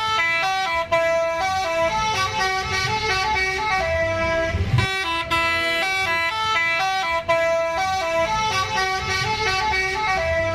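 Multi-tone telolet horn on an odong-odong playing a tune of held notes that step up and down and repeat, over the low rumble of the vehicle's engine.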